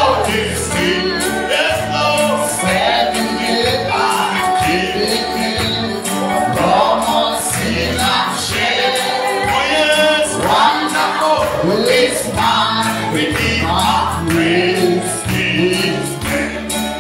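Live gospel worship song: voices singing over a band with a steady beat and rhythmic percussion.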